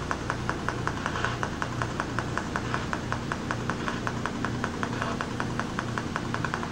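Steady rapid mechanical ticking, about five ticks a second, over a low hum.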